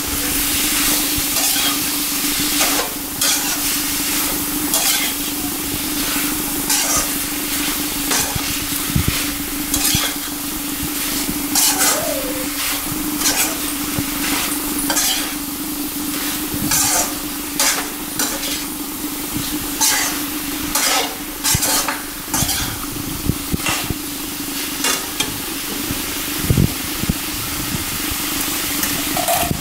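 Chicken pieces sizzling as they fry in a kadai, while a perforated spatula stirs them and scrapes and knocks against the pan in repeated strokes.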